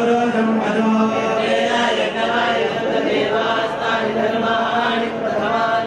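Voices chanting Sanskrit mantras in a steady recitation held close to one pitch, the ritual chanting that accompanies a Hindu puja.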